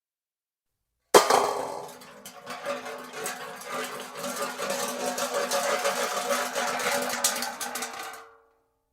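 Metal car hubcap hitting concrete with a sharp clang about a second in, then spinning and wobbling on the ground in a hollow, ringing metallic clatter that builds up again over several seconds. It stops suddenly as the hubcap falls flat, leaving a brief ring that fades.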